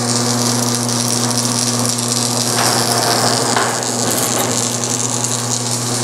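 Electric motor of a BWS-50 SAR scrap wire stripping machine running with a steady hum while 14-2 Romex cable is fed through its rollers and blades to slit off the outer sheath. The sound turns rougher for about a second midway.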